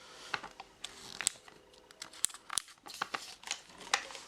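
Irregular sharp clicks and light rustling from an M4-style airsoft rifle being handled, its plastic and metal parts knocking and clicking.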